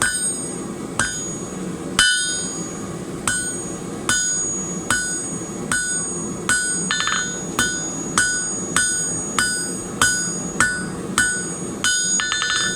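Blacksmith's hammer striking hot steel on an anvil, a steady run of blows that quicken to about two a second, each with a short metallic ring, as a taper is drawn back. The anvil's ring is partly deadened by chains laid on it.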